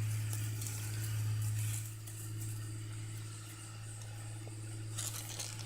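Steady low mechanical hum under faint rustling, with a brief rustle about five seconds in.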